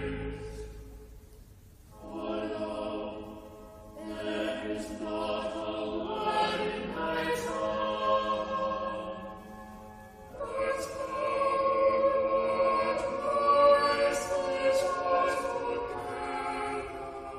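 Choir singing slow, held phrases with brief pauses between them.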